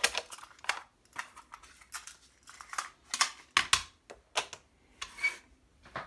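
The mechanical piano-key controls of a Sanyo M-W15 boombox's cassette deck being worked by hand: a run of irregular sharp plastic clicks and clacks, with a slightly longer clack about five seconds in.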